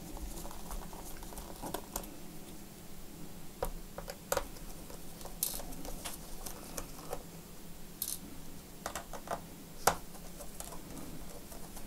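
Hands in nitrile gloves handling tools and the laptop on a rubber bench mat: scattered small clicks and taps, the sharpest about ten seconds in, with a brief scrape near the middle, over a faint steady hum.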